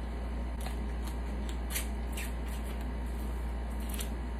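Close-up eating sounds of snow crab legs: a few short, irregular smacks and sucks as crab meat is sucked from the shell and buttery fingers are licked, over a steady low hum.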